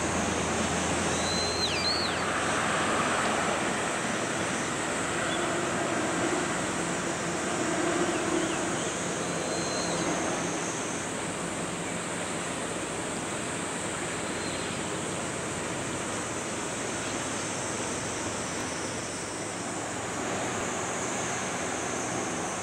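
Steady rushing outdoor noise of wind and water, with a few brief high chirps about two seconds in and again about ten seconds in.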